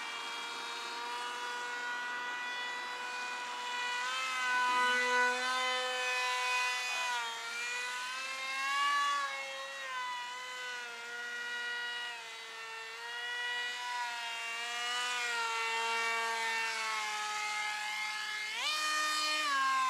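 Electric motor and propeller of a small foam RC jet (2200 kV brushless motor) whining, the pitch rising and falling with the throttle as it flies low. Near the end the whine jumps sharply higher and louder.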